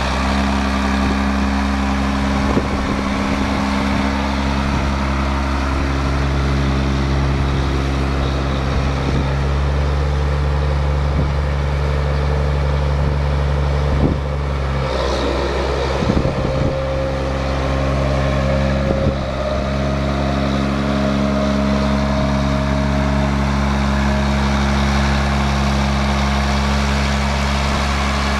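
John Deere 7810 tractor's 8.1-litre six-cylinder diesel (6081) idling steadily. A couple of brief knocks come around the middle, where the engine note shifts slightly.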